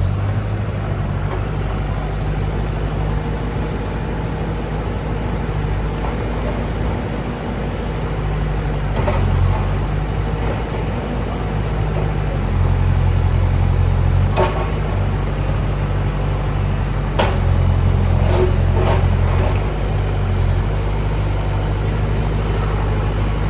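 Excavator's heavy diesel engine running under load and swelling louder several times as it digs, with a few sharp knocks of the bucket against broken concrete.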